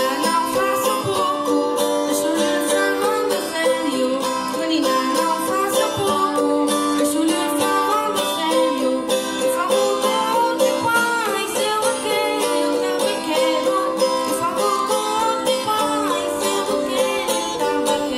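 Traditional Madeiran folk music from a plucked-string ensemble of small guitars, playing steadily without a break.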